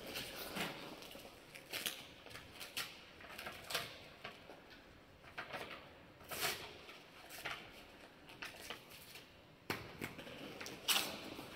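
Faint, irregular rustling and soft clicks of motocross gear and paper being handled, with a sharper crinkle or knock near the end; no engine is running.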